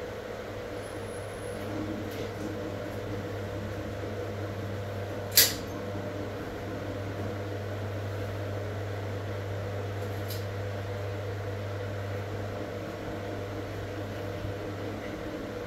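Steady electric motor hum, with one sharp click about five seconds in and a fainter one about ten seconds in.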